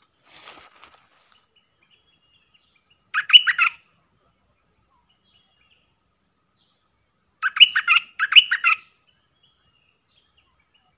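Stripe-throated bulbul singing short, bubbly warbled phrases: one about three seconds in, then two close together near the end, with a faint call at the start.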